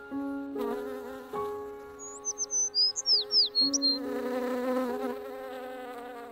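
Layered buzzing drone of several steady tones that shift pitch in steps every second or so, with a quick run of high chirps about two seconds in.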